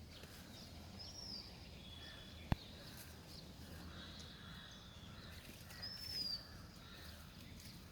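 Quiet farmyard ambience with a low steady background hum, in which a bird gives two short high chirps, about a second in and again near six seconds, and a single sharp click sounds about two and a half seconds in.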